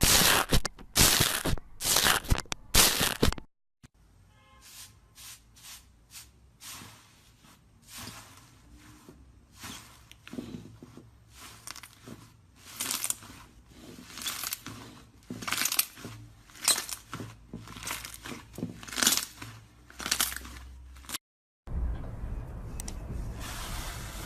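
Slime being squeezed and pressed by hand, crackling and popping. A loud, dense run of pops comes first, then softer, scattered pops, and a steady hiss near the end.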